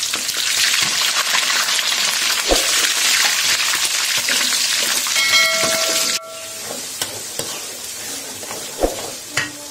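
Oil frying loudly in an aluminium pan while a metal spoon stirs. About six seconds in, a short steady tone sounds and the sizzle drops suddenly to a quieter level. A few sharp clinks of the spoon against the pan follow near the end.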